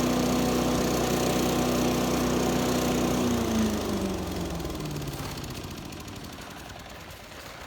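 A motor running at a steady pitch, then winding down: about three seconds in its pitch falls and it fades away over the next two seconds.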